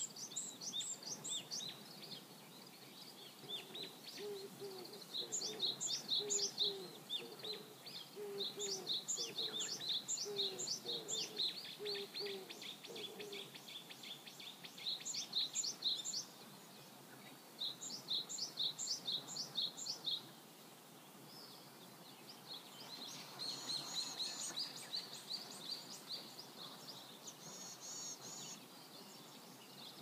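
Songbirds singing: bouts of quick, high repeated notes every few seconds, with a lower run of repeated notes through the first half and a different twittering song in the last few seconds.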